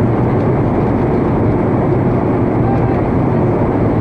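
Steady jet airliner cabin noise heard from inside the passenger cabin: the even drone of the engines and the rushing air, with no breaks.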